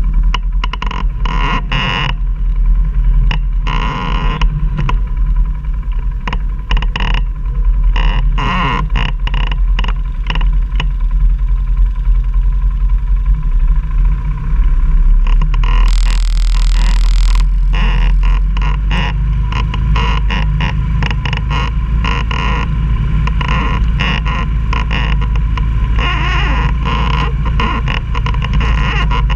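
Quad (ATV) engine running on a steep climb over rough ground, with frequent knocks and rattles throughout and a short hissing scrape about halfway through.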